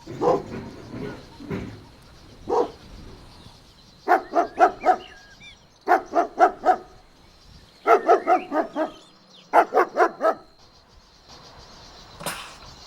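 A dog barking: a few single barks, then four quick runs of about four barks each, roughly two seconds apart.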